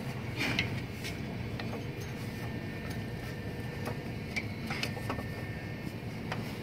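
Light scattered clicks and knocks of hands and a wrench working a serpentine belt off the AC compressor pulley, over a steady low hum.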